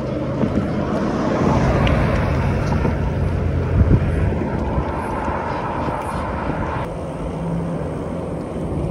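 Wind rushing over the microphone of a phone filming from a moving e-bike, mixed with road and passing-traffic noise. The noise swells for a few seconds about a third of the way in.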